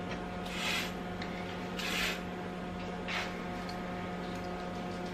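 Wooden rolling pin rolled over floured pastry on a worktop: three short rubbing strokes, about a second apart, over a steady low hum.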